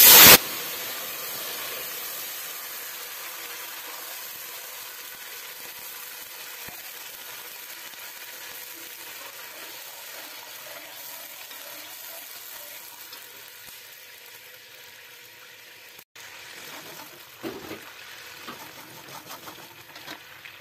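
Meat stock poured into hot caramelized sugar and oil in a steel pot: a loud splash and hiss at the start, then a steady sizzling, bubbling hiss that slowly fades as the stock comes to the boil. A few ladle stirs near the end.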